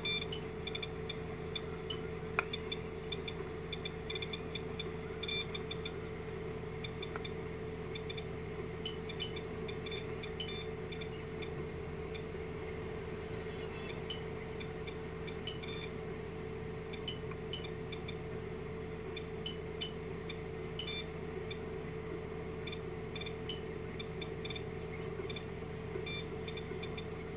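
SOEKS radiation dosimeter chirping at irregular intervals, a short high click for each particle it counts, at times several a second, over a steady low hum.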